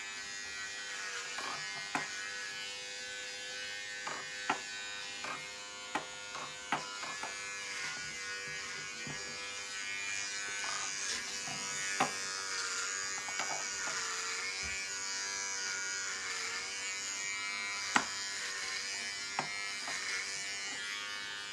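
Electric hair clippers buzzing steadily as they cut short hair close to the scalp, the hum dipping slightly in pitch now and then as the blades bite. A few short sharp clicks are scattered through it.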